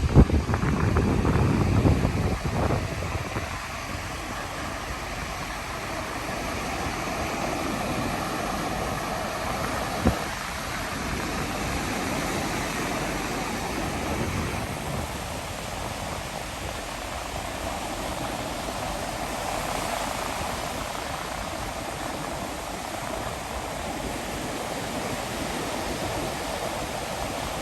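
Steady rushing of ocean surf with wind buffeting the microphone, gustiest in the first few seconds. A single sharp knock about ten seconds in.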